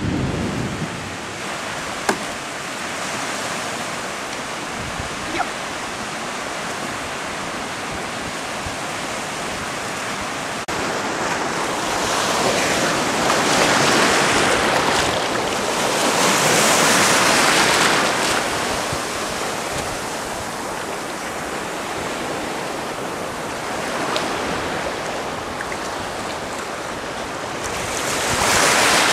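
Sea surf: small waves breaking and washing in the shallows, swelling in loudness every few seconds, with wind buffeting the microphone. Before the surf grows louder there is a steadier hiss of wind and distant waves, with two brief clicks about two and five seconds in.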